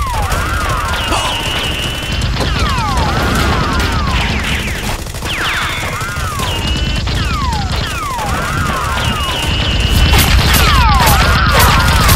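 Dubbed action soundtrack: a loop of falling, warbling electronic sweeps repeating every few seconds over a heavy low rumble, with rapid cracks like gunfire effects near the end.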